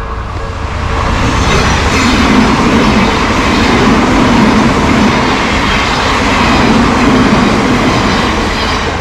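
Odakyu Line train passing through a level crossing: a loud rush of wheels on rail swells about a second in, stays loud, and eases near the end.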